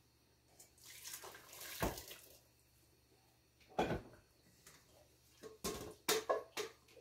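About half a cup of boiling water poured from a kettle into a slow cooker onto the meat, a short splashing pour lasting about a second and a half. Then a knock and a quick run of metal clanks as a stainless steel pot and lid are handled.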